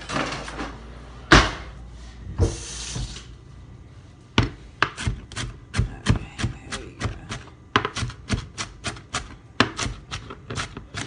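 Kitchen knife chopping lettuce on a cutting board: a few separate knocks, one loud, in the first seconds, then steady quick chops, about three a second, from about four seconds in.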